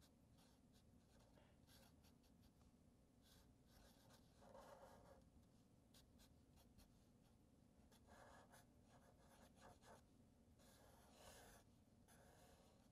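Faint scratching of a felt-tip marker drawing short strokes on paper, the strongest strokes about four and a half seconds in and again about eleven seconds in.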